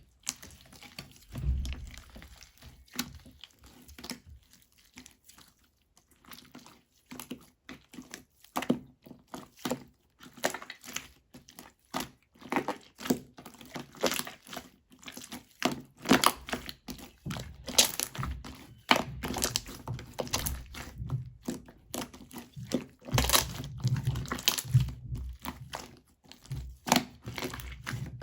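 Irregular crinkling and rustling with many small clicks and knocks, close up in a small room.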